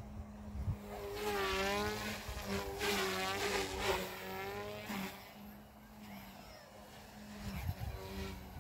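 Goosky S1 radio-controlled helicopter in flight: the buzzing whine of its rotors and electric motors, its pitch wavering up and down as it manoeuvres. It is loudest from about one to four seconds in, dies down in the middle and grows again near the end.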